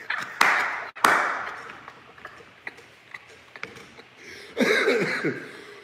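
A man laughing with breathy exhales, with a sharp knock about a second in; a short run of falling voiced laughter sounds near the end.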